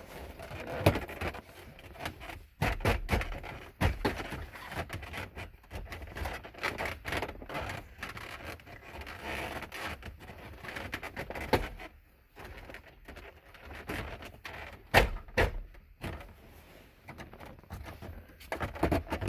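Plastic steering-column trim and wiring being worked into place by hand under a car's dashboard: irregular clicks, knocks and scraping, with a few louder thumps (about a second in, near the middle and about three-quarters through).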